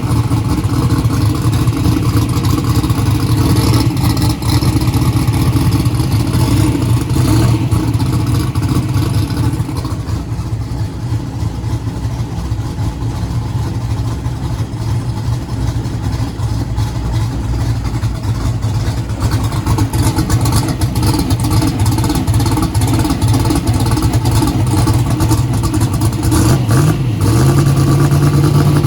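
Engine of a hot rod fitted with a 118mm turbocharger, running steadily in the shop. About 27 seconds in, the revs rise and are held higher.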